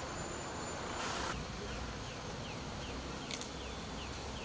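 Street ambience: a steady low traffic rumble with a short hiss about a second in. From about a second and a half on, a run of short falling chirps repeats about twice a second.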